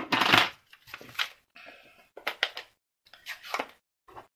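Card-making supplies being handled on a desk: about five short bursts of clicks, taps and rustles as items are picked up and set down.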